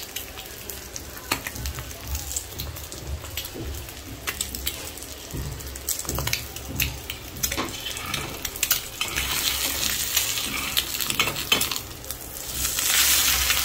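Egg frying in oil on a black iron tawa: steady sizzling dotted with sharp crackles and pops. The sizzle grows louder about nine seconds in, and swells to its loudest near the end, just after the egg is flipped with a metal spatula.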